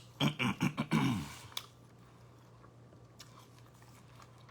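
A man eating: about a second of voice sounds at the start, then quiet chewing with a few faint mouth clicks over a low steady hum.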